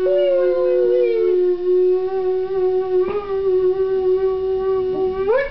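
A voice holding one long, steady wailing note, with a second voice sliding downward alongside it for about the first second. Near the end the note rises sharply.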